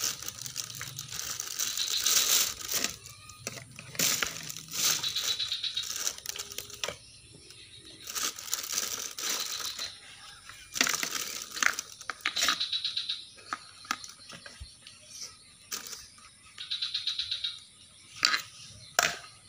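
Plastic carrier bag crinkling and rustling in irregular bursts as a toddler rummages through it, with sharp clicks and clacks of plastic toy dishes being handled.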